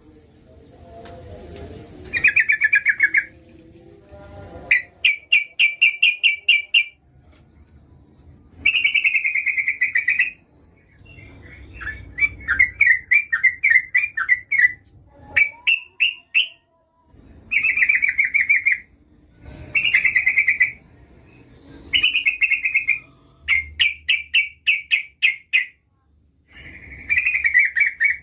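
Yellow-vented bulbul (trucukan) calling: repeated bursts of rapid, chattering notes, each a second or two long with short pauses between, and one longer warbling phrase about halfway through. The title identifies it as a female calling to draw a male.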